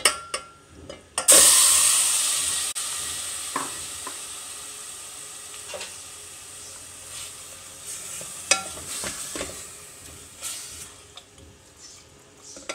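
Marinated chicken cubes hitting hot oil in a steel pot: a sudden loud sizzle about a second in that slowly fades. Later a wooden spatula stirs, knocking and scraping against the pot now and then.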